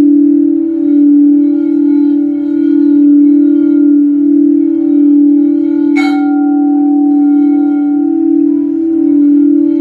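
Tibetan singing bowl sung by rubbing its rim: a steady, low hum that wavers in a slow pulse. About six seconds in, a single strike sets higher tones ringing over the hum.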